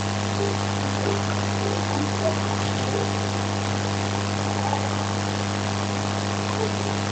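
A steady low hum over a constant hiss, unchanging throughout.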